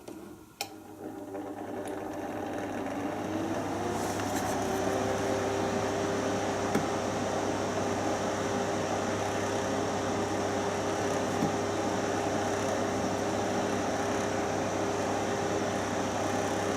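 AKO H 260/4 bath fan heater switched on with a click, its fan spinning up with a rising whine over about four seconds. It then runs at a steady speed with a constant hum and rush of air.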